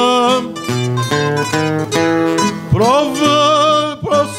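A male voice singing Azorean cantoria, accompanied by a viola da terra and a classical guitar. The voice drops out for a short stretch of plucked string notes about a second in, then comes back with a rising note near the end.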